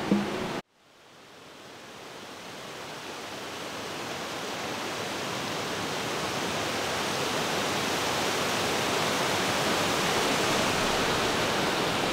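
Guitar music cuts off abruptly just after the start, then a steady rushing noise like running water or surf fades in over several seconds and holds.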